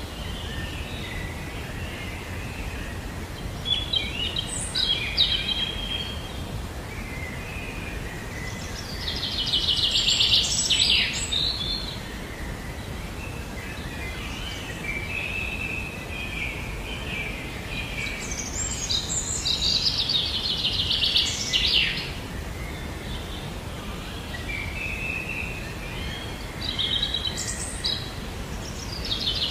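Songbirds singing: a quick, high trilled phrase comes back about every nine seconds, with scattered chirps between, over a steady low background rumble.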